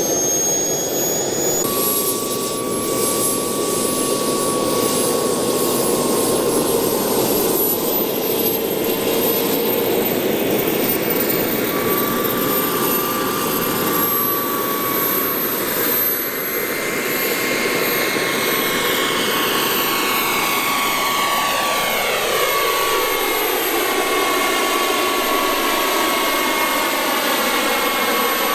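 Radio-controlled model airplane in flight, its motor running with a steady whine. About two-thirds of the way through, the plane passes by and the sound sweeps downward.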